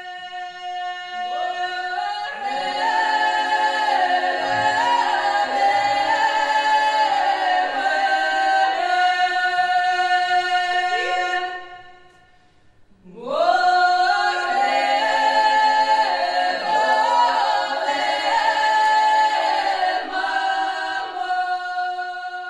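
Choir singing a cappella in layered harmony over a steadily held note, in two long phrases with a short break about twelve seconds in.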